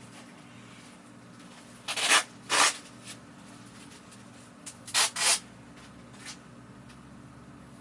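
Four short hissing sprays in two quick pairs, typical of a trigger spray bottle of cleaner, over a faint steady hum.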